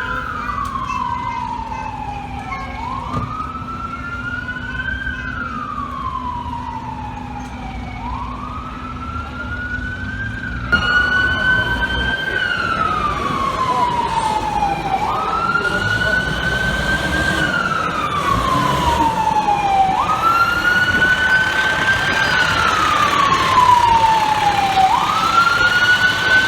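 Fire truck siren on a slow wail, the pitch climbing and then sliding down again about every four to five seconds over street noise. It gets louder about eleven seconds in.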